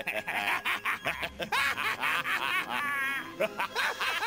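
Two cartoon villains' dubbed voices laughing together in a drawn-out, gloating laugh of rapid repeated bursts.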